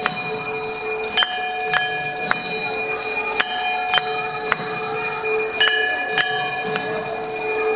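Temple bells ringing for the arati: several steady ringing tones sound throughout. Over them a bell is struck in quick groups of three, about half a second apart, with a new group every two seconds or so.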